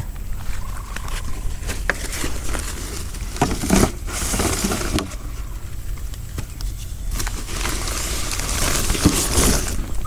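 A woven plastic sack rustles in long bouts and plastic jars knock now and then as they are taken out and set down, over a steady low rumble.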